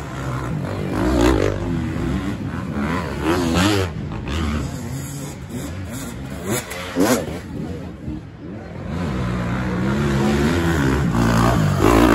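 Dirt bike engines revving hard on a steep dirt hill climb, the pitch rising and falling over and over as the riders blip and hold the throttle. The loudest burst comes near the end as a bike passes close.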